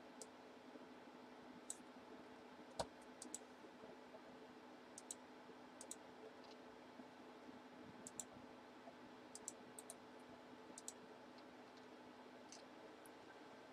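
Faint computer mouse clicks, scattered and irregular, many in quick pairs, with one louder click about three seconds in, over a low steady hum.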